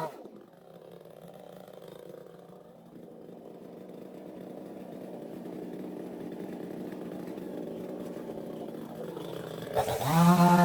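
Chainsaw running, muffled, growing slowly louder over several seconds.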